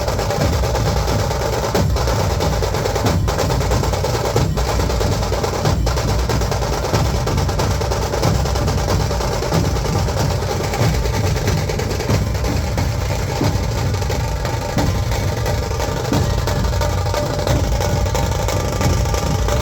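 Dhol-tasha ensemble playing: massed dhol barrel drums beating under rapid tasha drum rolls, loud, dense and continuous.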